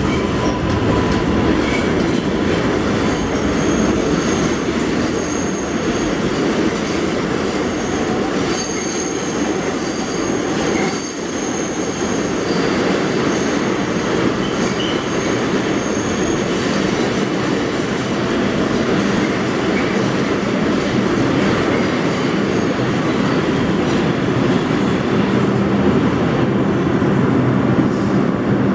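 New York City subway R142/R142A train running through the station: a steady loud rumble with high-pitched wheel squeal coming and going over the first half.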